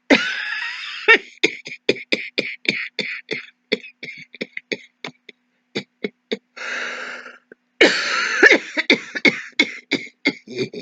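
A woman's continuous hacking cough, put on as a demonstration: a harsh first cough, then a rapid run of short, sharp coughs that thins out. A noisy in-breath comes a little past the middle, then a second fit of coughing.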